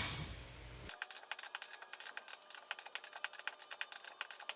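Car jack being cranked up to lift the car, giving a rapid run of small mechanical clicks, several a second. It opens with the fading ring of a metal clank.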